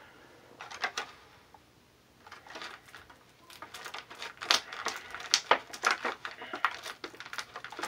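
Clear plastic packaging crinkling and crackling in quick irregular clicks as an action figure is worked out of it by hand, sparse at first and busier from about halfway through.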